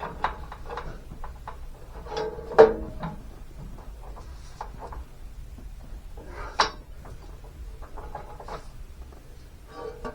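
Scattered clunks, knocks and scrapes of a metal exhaust side pipe being worked up onto its header and frame mounts, with two sharper knocks, about two and a half and six and a half seconds in.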